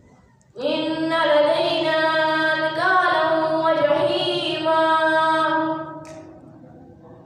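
A boy's voice chanting Quranic recitation in a melodic tajweed style. After a short pause, one long held phrase starts about half a second in with wavering ornaments in pitch, then tails off about a second before the end.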